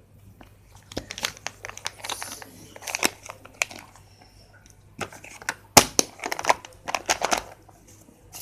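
Plastic pencil boxes being handled on a sheet of paper: a run of light clicks, knocks and rustles as lids are opened and shut and the pencils and crayons inside are moved, with a sharper knock about six seconds in.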